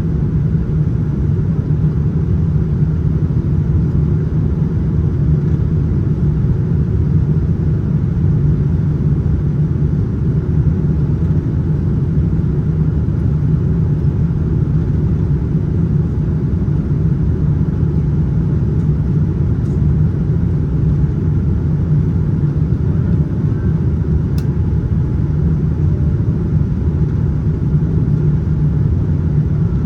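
Steady cabin rumble inside a Boeing 787-9 airliner in flight: a constant low roar of engines and airflow, with a couple of faint ticks near the end.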